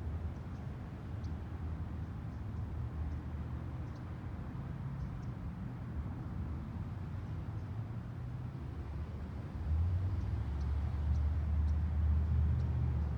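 A steady low rumble that grows louder about ten seconds in, with faint, brief, high chirps from small backyard birds scattered over it.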